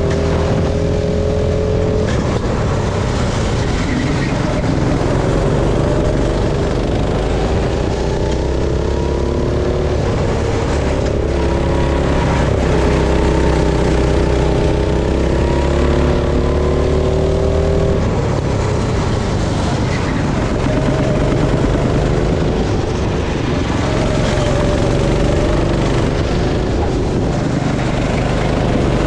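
Go-kart engines running at speed on a track, their pitch rising and falling as the karts brake and accelerate through corners. At times two engines are heard at once, at different pitches.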